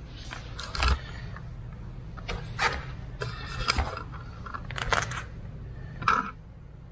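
Footsteps of new rubber-soled golf shoes on a stone tile floor: about five sharp steps and sole scuffs, roughly one a second, some with a short squeak.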